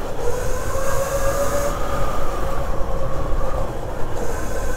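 Burromax electric minibike under way, its electric motor and chain drive giving a steady whine that rises a little about a second in, over a low rumble of wind on the microphone. A high hiss fades out around the middle and returns near the end.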